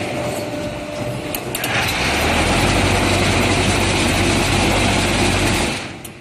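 QT15-15 automatic concrete block machine running through its moulding cycle: a mechanical whir, then about two seconds in a loud, steady vibrating drone with a deep hum, typical of the mould vibrators compacting the concrete mix. The drone lasts about four seconds and dies away near the end.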